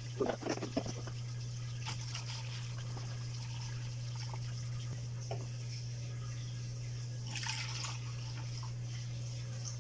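Used engine coolant being poured from a plastic basin through a metal funnel into a jug, trickling and splashing. There are a few knocks in the first second, a brief splash about seven and a half seconds in, and a steady low hum throughout.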